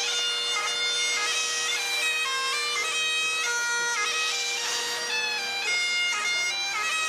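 Bagpipes playing a tune over a steady drone.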